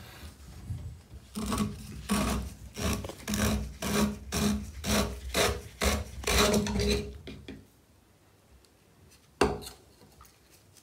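Plastic bathtub drain strainer being unscrewed by hand, its threads rasping in a quick run of short twisting strokes, about two a second. Then it stops, and there is a single sharp click later on.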